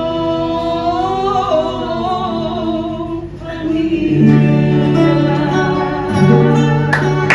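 Fado singing: a singer holds one long, wavering note over guitar accompaniment for about three seconds, then the voice stops and the guitars play on alone.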